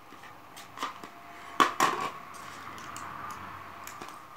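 A small screwdriver prying and scraping under the flat cells of a laptop battery pack to cut the tape that holds them to the casing. There are sharp clicks, the loudest about one and a half seconds in, then a steady scraping rustle.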